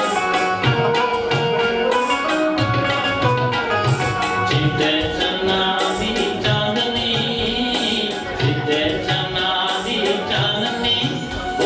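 Pahari folk dance music: a fast, steady hand-drum rhythm under a melody line, with a brighter, higher part coming in about four seconds in.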